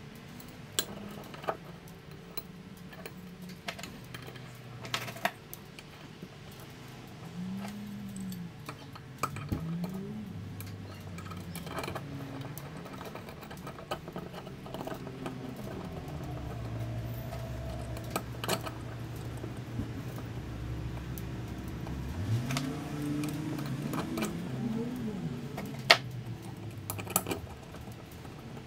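Scattered light metallic clicks and taps, with one louder tap near the end, over a low hum that rises and falls in pitch several times.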